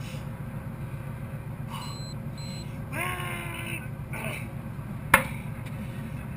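A man's straining groan about three seconds in as he heaves a 50 kg sandbag onto his shoulder, then a sharp thud a couple of seconds later as the sandbag is dropped onto the deck. Two short electronic beeps come about two seconds in, over a steady low hum.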